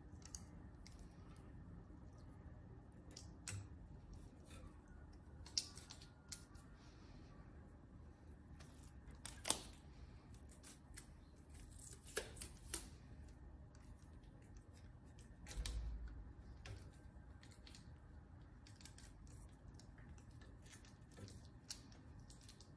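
Scattered small clicks and taps from hands handling a clear plastic beam test rig and fitting a mass onto it. The sharpest click comes about nine and a half seconds in, two more follow near twelve seconds, and there is a low dull bump about sixteen seconds in.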